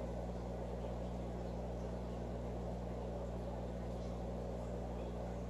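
Steady low electrical hum with a faint hiss, unchanging throughout: room tone with no distinct events.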